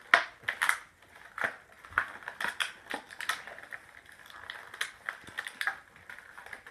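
Plastic toy packaging crackling and clicking as it is handled and pulled open, in an irregular run of sharp crinkles with a few louder snaps near the start.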